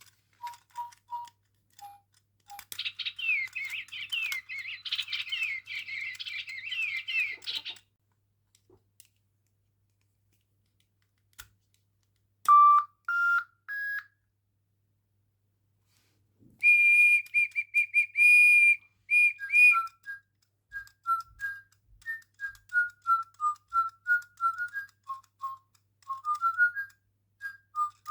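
Electronic toy bird chirping and whistling. First a burst of quick warbling chirps, then after a pause three short rising beeps, then a run of pulsed buzzy tones, then a long string of quick falling whistled tweets.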